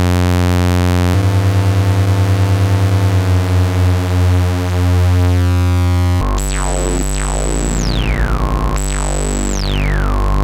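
Eurorack modular synthesizer patch through the Make Noise Quad Multimode Gate (QMMG), sounding a sustained multi-tone drone that changes and starts to pulse about a second in as the patch is altered. From about six seconds in, two high tones each hold and then sweep steeply down, a couple of seconds apart, over the continuing low drone.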